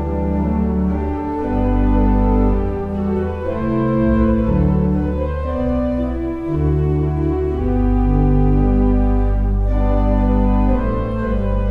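Organ music playing slow, sustained chords over long, deep bass notes, the chord changing every second or two.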